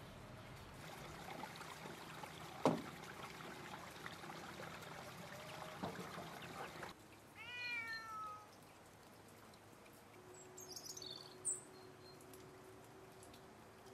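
Rustling and handling noise with a sharp click about three seconds in, then, about halfway through, a cat meowing once, a drawn-out falling call, followed by a few brief high chirps.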